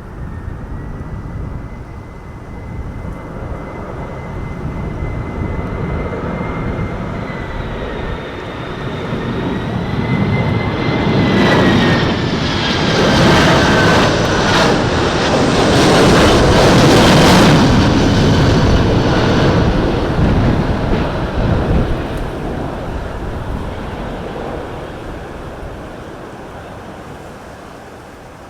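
Boeing 737-800's twin jet engines on landing approach: a steady high whine over a broad rumble that swells as the plane passes, the whine dropping in pitch about twelve seconds in, then the sound fades away.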